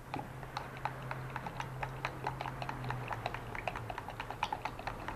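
Stir stick clicking and tapping against the sides of a plastic container as thinned gesso is mixed: quick, irregular small knocks, several a second, over a faint steady low hum.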